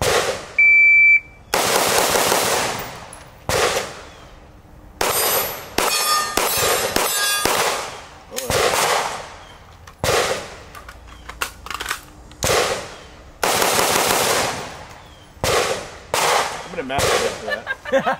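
A shot timer's short start beep, then a string of rifle shots from an AR-style rifle, single shots spaced roughly one to two seconds apart, each ringing out behind it. Metallic clinks come in a stretch about five to seven seconds in.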